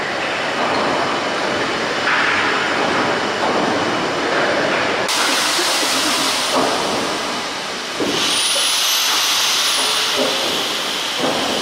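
The Sir William Prescott triple-expansion steam pumping engine running: a steady hiss of steam with the mechanical noise of its moving rods and crossheads and a few sharp knocks. The hiss grows brighter about halfway through, and a faint high squeal comes in near the end.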